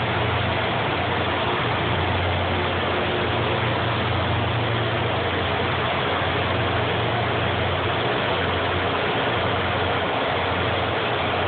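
Rail grinder train rolling past, its diesel engines running under a steady, loud, dense rush of noise.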